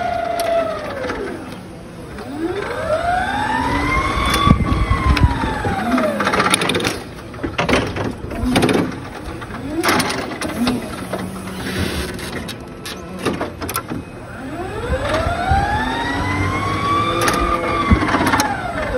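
Forklift driving, its motor whine rising in pitch as it speeds up and falling as it slows, twice, with scattered clunks and rattles from the mast and forks.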